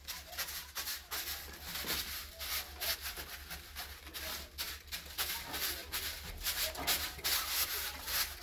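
Short hand broom sweeping debris across the concrete floor of a block cage, a rapid, irregular series of brushing strokes.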